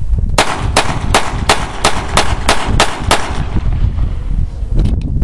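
9mm pistol fired in a rapid string of about nine shots, roughly three a second, stopping about three seconds in.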